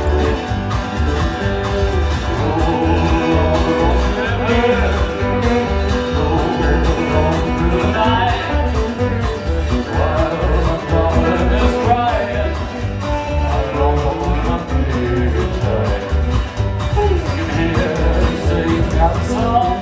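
Live country band playing, with guitars over a steady pulsing bass beat.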